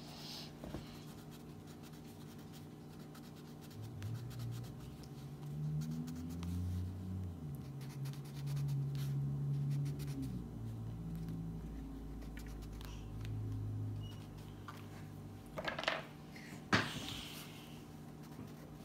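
Wax crayon scratching on coloring-book paper in back-and-forth strokes. A low wavering hum rises and falls through the middle, and two sharp knocks come a couple of seconds before the end.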